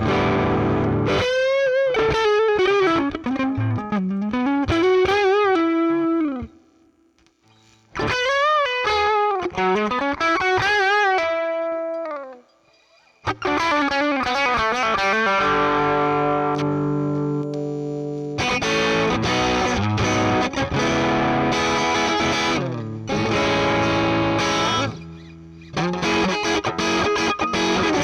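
Electric guitar played through the Zoom G2 Four's Fender Deluxe Reverb amp model, with some overdrive. It plays two single-note phrases with string bends and vibrato, each followed by a short pause, then ringing chords and busier rhythm playing.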